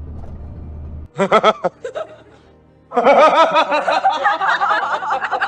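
Low, steady rumble of the truck for about a second, then a cut to an edited-in comic laughing sound effect with music: a short burst of quick giggles, and from about three seconds in a longer, louder run of them.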